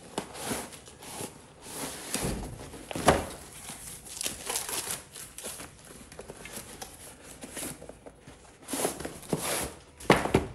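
Massage gun packaging being handled and opened: irregular crinkling, rustling and tearing, with a sharp snap about three seconds in and another burst of handling noise near the end.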